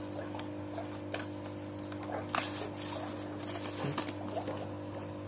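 Scissors snipping through a cardboard package, with cardboard and plastic packaging scraping and rustling in the hands and one louder tear or scrape about two and a half seconds in. A steady low hum runs underneath.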